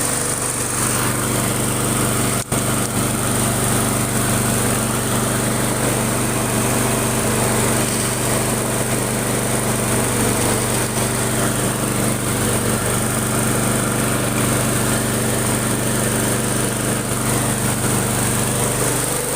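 Small lawn mower engine running steadily at a constant speed, with a momentary dip about two and a half seconds in.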